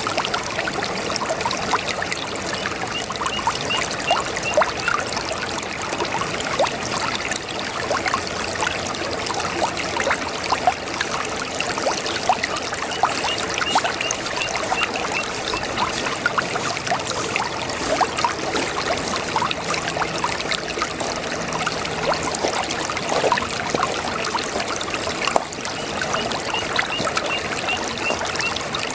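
A small brook babbling and trickling over stones, a steady rush of water full of quick bubbling splashes. Three times a faint, rapid, high chirping trill comes in briefly over the water.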